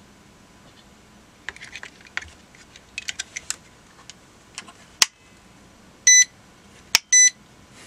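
Light plastic clicking and rattling as a 9 V battery is clipped into a Uni-T UT61E multimeter and the meter is handled. Then come two sharp clicks of its rotary range switch and two short, high, loud beeps from the meter's buzzer, about a second apart; with the back case off the beep is nice and loud.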